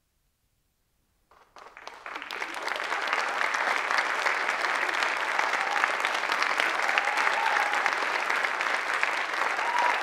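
Audience applause: silence, then clapping breaks out about a second in, swells quickly and holds steady and full.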